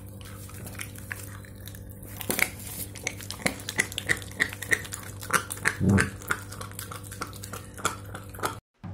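A mongrel puppy chewing and tearing at a piece of raw meat, with many short sharp clicks and smacks of teeth on the meat. A short, louder low sound comes about six seconds in.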